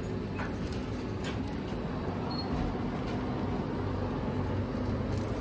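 Steady low hum of a convenience store's refrigerated display cases and ventilation, with a couple of light clicks in the first second or so as a plastic bottle is taken from the shelf.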